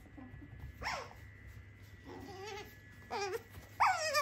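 Asian small-clawed otter calling in a series of about five short, high-pitched whining chirps with wavering pitch, the last two the loudest.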